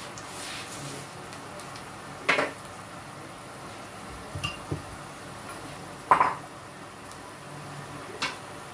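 Metal kitchenware clanking against pots and pans four times, the loudest about six seconds in, over a steady faint hiss.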